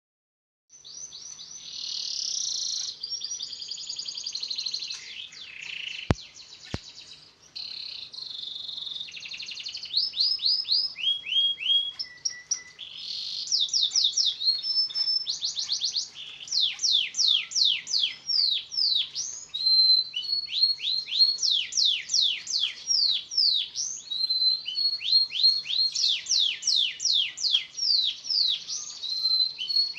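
Domestic canary singing a long, varied song. It starts with rolling trills, and from about halfway it switches to fast runs of repeated downward-sweeping notes.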